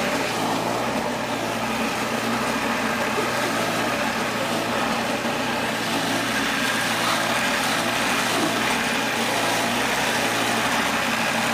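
Small engine running steadily, driving a cassava grating machine as peeled cassava roots are fed into its hopper and ground to pulp.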